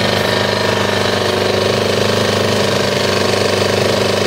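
Champion 2000-watt inverter generator's small single-cylinder four-stroke engine running steadily with its side cover off, no stumbling or cutting out. It is running again after its carburettor float bowl was cleaned out, cured of the cutting out that had ended in a no-start.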